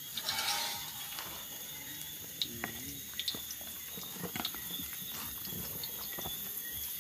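Chopped seasoning frying in hot oil in a pot over a fire: a steady sizzle with scattered short clicks and crackles.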